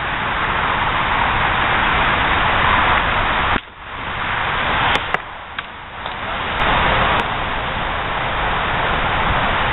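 A steady rushing noise dips sharply about three and a half seconds in, then builds back. Over it come a few sharp knocks of plywood swords striking shields, clustered around five seconds in.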